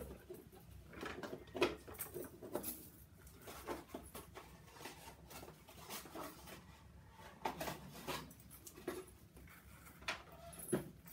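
Irregular rustling of wrapping and small knocks as a sparkly handbag with a chain strap is unwrapped and handled.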